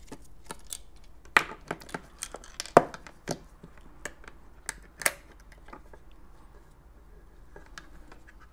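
Clicks and knocks of a plastic sewing-machine foot pedal housing and its circuit board being handled and lifted out, with the sharpest knocks about one and a half, three and five seconds in, and only faint handling after about six seconds.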